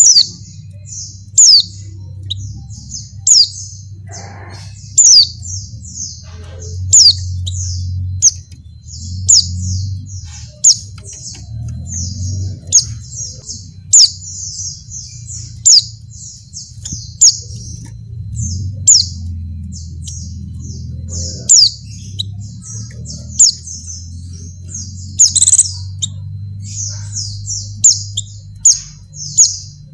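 Female white-eye (pleci) calling in breeding condition to attract males: a steady stream of rapid, high chirps, broken every one and a half to two seconds by a louder, sharp downward-sweeping note, over a low background hum.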